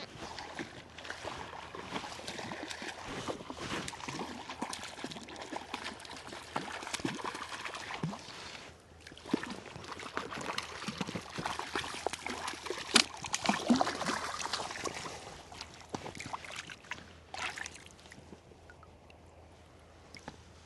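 Water splashing and sloshing in irregular bursts, as a hooked trout thrashes at the surface while it is played in. The splashing is loudest about thirteen seconds in and dies down near the end.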